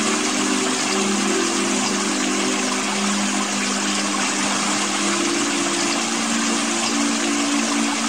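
Steady rushing and splashing of a small waterfall pouring into a rock pool, with a low steady hum of a few tones underneath.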